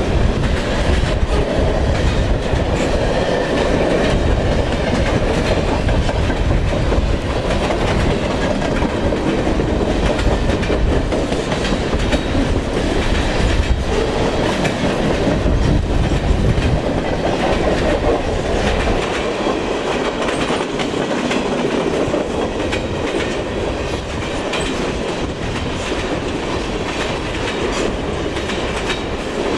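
A freight train of tank cars and boxcars rolling past close by, its steel wheels clicking over the rail joints in an uneven patter above a steady rumble. The deep part of the rumble lessens about two-thirds of the way through.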